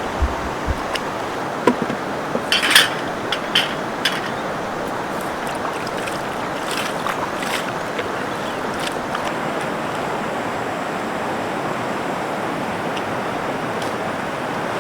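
River water rushing steadily, with a few short clicks and knocks in the first four seconds or so.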